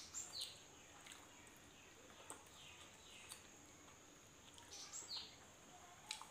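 Near silence with faint bird chirps, a few short calls each sliding downward in pitch, and scattered soft clicks from eating momos by hand.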